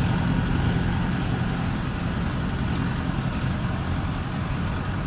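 Steady motor vehicle engine hum and road noise, with the low engine drone easing a little after the first couple of seconds.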